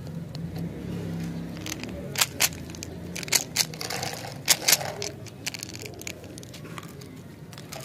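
Plastic umbrella-shaped candy container being handled: several sharp plastic clicks and snaps, mostly in close pairs, as its green handle and cap are worked loose.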